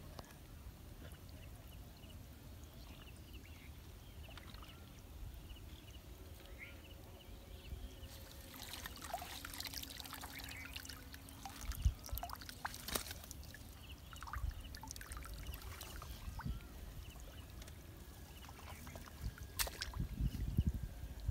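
Wind rumbling on the microphone, with scattered rustling and sharp clicks from handling a caught fish and a mesh net bag, and water trickling and splashing near the end as the bag is set down in the shallows.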